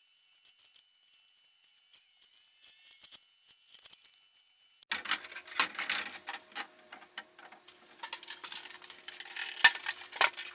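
Light metallic clinking and rattling. A dense run of sharp clicks begins abruptly about five seconds in, and the loudest clicks come near the end.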